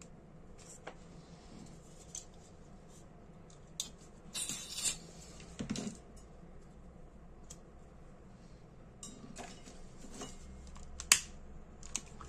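Small brass lighter parts and tools clicking and tapping as they are handled and set down on a paper-covered workbench, with short rustling noises about four and six seconds in and one sharp click just after eleven seconds, the loudest sound.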